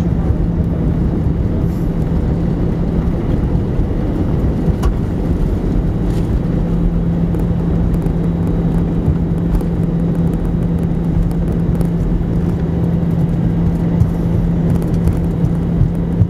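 Inside the cabin of an Airbus A319 rolling out on the runway after landing: a steady, loud rumble from the engines and the wheels on the runway. A steady low hum runs under it and drops out briefly about five seconds in.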